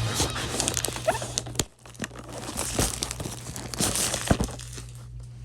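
Funko Pop pin packaging being crinkled and torn open by hand, with irregular crackles and snaps and a brief pause about a second and a half in.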